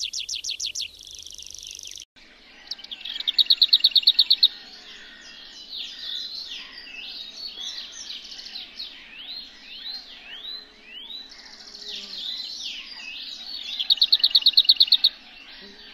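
Songbirds singing. There is an abrupt change about two seconds in. After it, a loud, fast run of repeated notes comes twice, once early and once near the end. Between the runs is a varied string of rising and falling whistled phrases.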